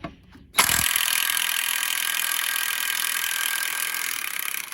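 Bauer 1/2-inch impact wrench hammering steadily on a bolt tightened to 225 foot-pounds, trying to break it loose. It starts abruptly about half a second in and runs on at an even level.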